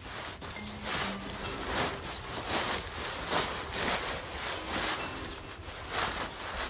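Pop-up privacy tent's fabric rustling and swishing in irregular bursts as it is twisted and folded down into a flat round coil.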